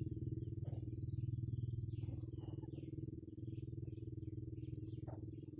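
A mesh net bag and dry grass rustling in short scattered bursts as the bag is handled, over a steady low pulsing drone that is the loudest sound.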